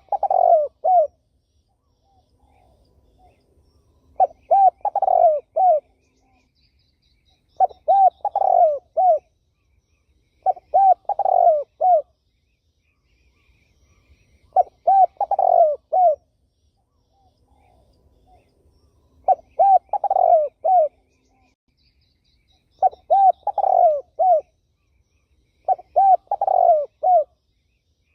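Spotted dove (terkukur) cooing: about eight phrases of several quick coos each, one phrase every three to four seconds. Faint high chirps come in between.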